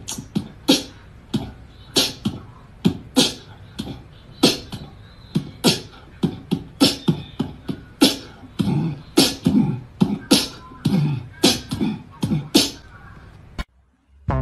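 A rapid, uneven series of sharp clicks and pops, about two or three a second, with heavier low thumps in the second half, like beatboxing. It stops abruptly near the end.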